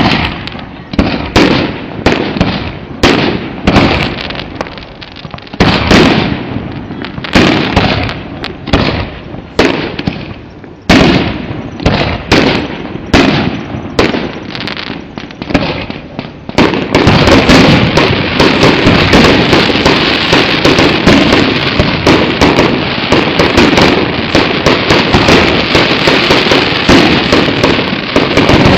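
Fireworks exploding in a string of separate loud bangs, about one or two a second. About two-thirds of the way in they merge into a dense, continuous barrage of rapid explosions.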